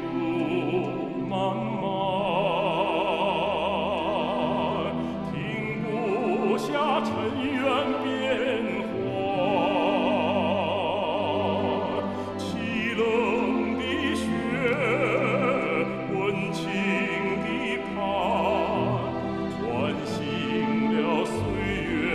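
A theme song with a singer holding long notes with a wide vibrato, one after another, over an orchestral backing.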